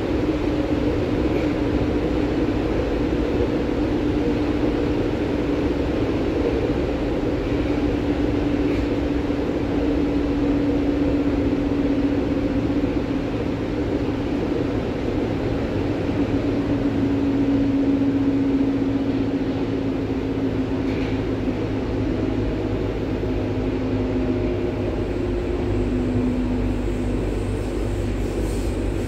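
Berlin U-Bahn H01-series train running between stations, heard from on board. Steady wheel-on-rail rumble and running noise with a low motor hum that drifts slowly in pitch.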